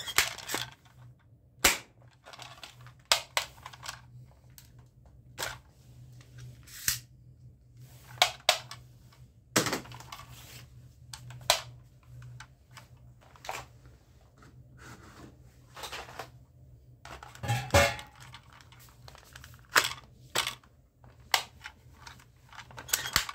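Spring-powered toy airsoft gun firing plastic BB pellets over and over: sharp snaps at uneven intervals, roughly one to two seconds apart, with smaller plastic clicks between shots.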